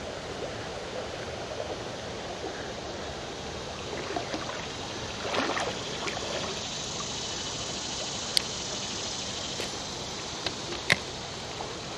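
Shallow creek water running and trickling steadily, with a brief louder rush about five seconds in and two sharp clicks in the second half.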